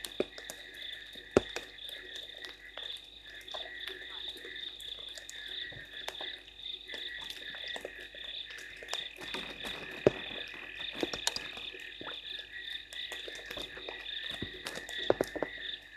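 A steady, high-pitched night chorus of frogs calling at a waterhole, broken by scattered sharp taps of raindrops, the loudest about a second and a half in, about ten seconds in and about fifteen seconds in.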